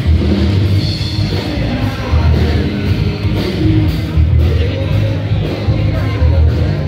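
Live rock band playing a song, with drums, a heavy pulsing bass and singing.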